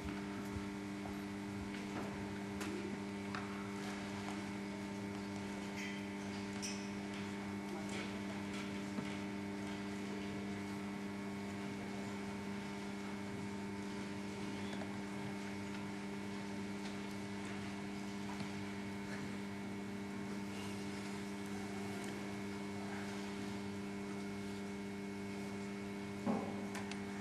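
Steady electrical hum with faint scattered ticks from the hall, and one sharper knock near the end.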